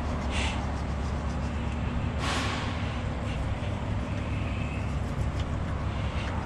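Diesel truck engine idling with a steady low rumble. A short hiss comes just after the start and a louder one about two seconds in.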